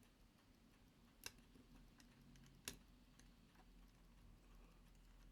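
Mostly near silence, with a few faint, sharp clicks of small metal tools on a pocket watch movement as it is taken apart. Two clicks stand out, about a second in and again near the middle.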